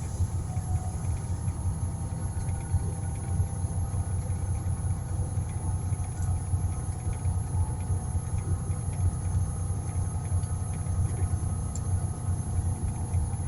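Steady low rumble of an engine or motor running.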